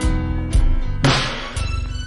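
Instrumental break of a slowed-down hip-hop beat: sustained synth or keyboard tones over deep bass, with sharp drum hits at the start, about half a second in and about a second in.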